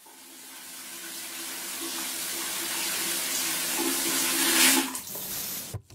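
A rushing, water-like noise that fades in and swells steadily for nearly five seconds, with a faint low hum beneath it, then falls away and cuts off just before the end.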